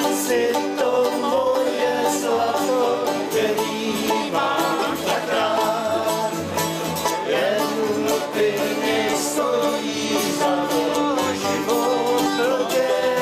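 Several men singing together to strummed acoustic guitar and mandolin.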